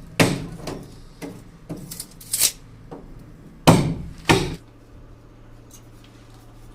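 Hammer strikes, about seven irregular blows with the loudest near the start and around four seconds in, then they stop.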